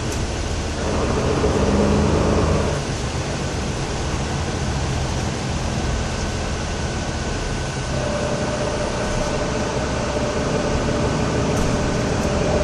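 Cabin noise inside a Mercedes-Benz Conecto II city bus on the move: a steady mix of engine and road noise, louder for a couple of seconds about a second in, with a steady whine setting in about eight seconds in.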